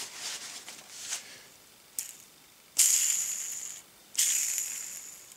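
Paper towel rustles briefly. Then a lawnmower wheel ball bearing, cleaned of its grease with petrol, is spun by hand twice, each spin a high rattling whir that fades over about a second: the bearing is turning dry, with no grease in it.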